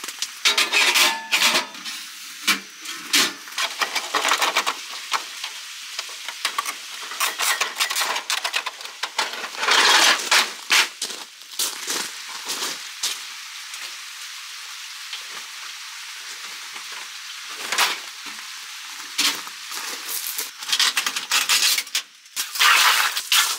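Irregular crunching footsteps and shuffling on crushed-stone gravel, with short clicks of a metal wood stove and its flue pipe being handled.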